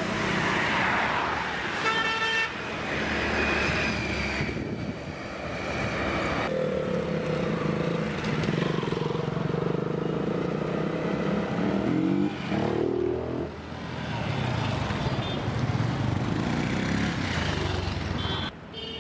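Road traffic and motorcycle engines running, with a vehicle horn honking briefly about two seconds in and an engine revving up and down about two-thirds of the way through.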